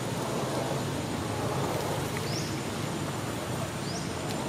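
Steady outdoor background noise, with two short high chirps about two and four seconds in.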